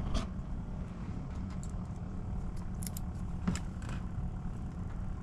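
A recovered fishing lure and its hooks being handled, giving a few light metallic clicks and jingles over a steady low rumble.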